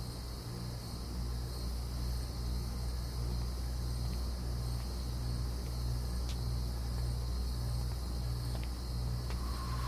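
Ambient sound effect of crickets chirping over a low, pulsing hum.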